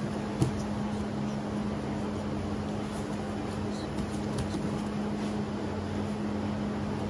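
A steady hum over an even background noise, with one sharp thump about half a second in and a few faint ticks.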